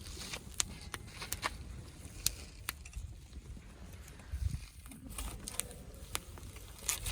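Irregular light clicks and taps, a few a second, over an uneven low rumble.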